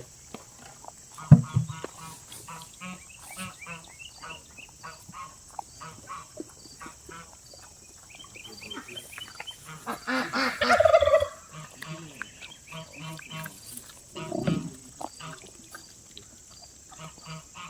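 Farm animals calling: many short, repeated high-pitched calls, with a louder, longer call about ten seconds in. A sharp, sudden sound comes about a second in, and another loud sound comes near the end.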